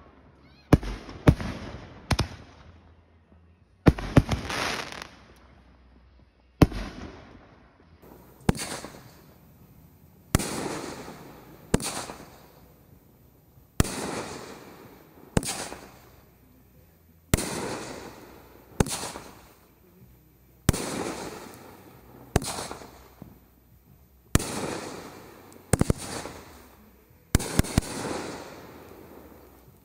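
Aerial fireworks firing and bursting overhead in a steady run. Each shot is a sharp bang with a fading, echoing tail. There are a few scattered bangs at first, then about one every second and a half to two seconds.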